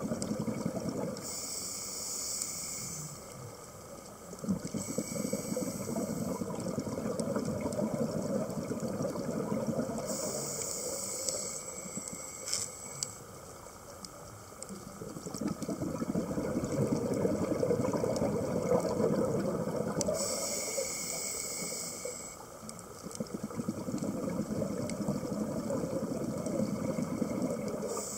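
Scuba diver breathing through a regulator underwater: a short hissing inhale through the demand valve, then a longer bubbling stretch of exhaled bubbles. The cycle repeats several times.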